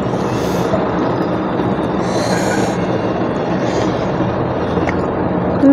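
Steady rumbling background noise, with a few short soft rustles.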